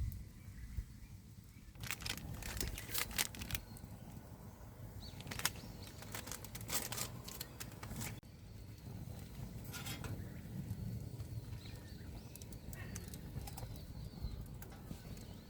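Strong wind buffeting a tent, with the tent fabric flapping and crackling in several bursts over a low, steady rumble.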